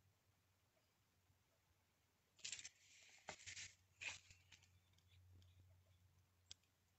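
Near silence, broken about two and a half to four seconds in by a few short rustling, scraping bursts of a paper card being turned and slid across the work surface, with a small click near the end.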